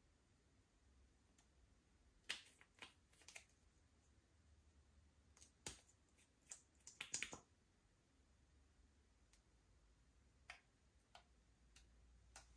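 Slime being worked by hand, giving soft sticky clicks and small air-bubble pops in scattered little clusters.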